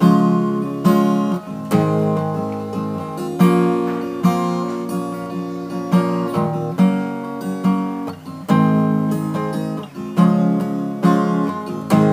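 Capoed acoustic guitar strumming chords in a steady rhythm, with accented strums a little more than once a second, an instrumental passage without singing.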